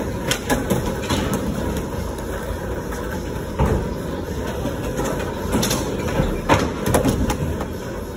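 Skateboard wheels rolling on a concrete floor, a steady low rumble, with several sharp clacks of boards hitting the floor and ramp just after the start and again in the second half.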